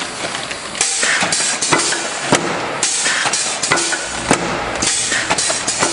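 Paper-bag take-off conveyor on a packaging line running, with its flap-closing rods and belts working. It makes a steady machine noise with frequent irregular clacks and knocks.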